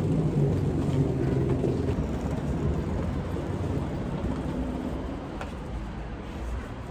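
Low steady rumble with a faint hum, fading gradually over the seconds.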